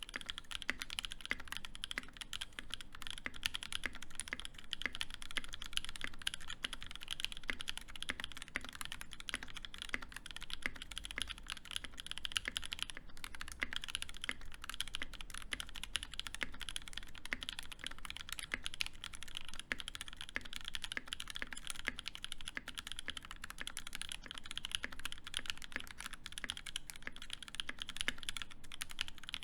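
Steady, fast typing on a D65 custom mechanical keyboard with lubed NK Cream linear switches on an aluminium plate and GMK Wavez doubleshot ABS keycaps, a dense run of key strokes with no pauses.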